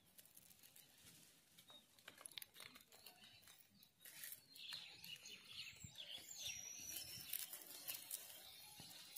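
Near silence: faint outdoor ambience with small scattered rustles and clicks, and faint bird chirps from about four seconds in.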